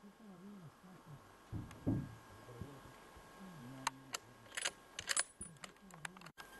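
Handling noise at a shooting bench: a low thump about two seconds in, then a quick run of sharp metallic clicks and taps in the second half, over a faint wavering low hum.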